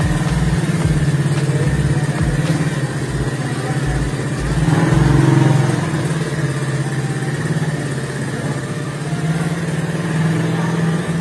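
ATV (quad bike) engine idling steadily, swelling louder briefly about five seconds in.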